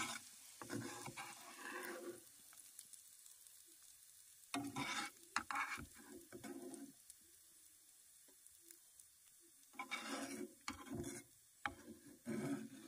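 Metal slotted spatula scraping and stirring food in sizzling oil in a nonstick frying pan, in four short spells of strokes with a faint sizzle between.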